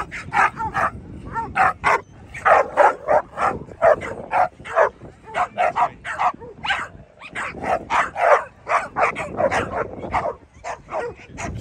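American Pit Bull Terriers barking in quick runs of about three or four barks a second, with a couple of brief lulls.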